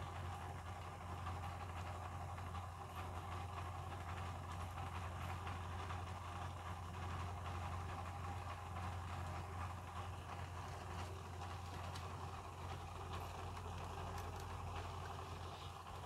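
A steady low machine hum, with a few faint clicks near the end.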